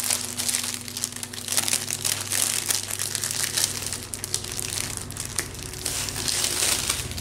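Clear plastic wrapping crinkling and crackling steadily as it is handled and peeled from a rolled diamond painting canvas.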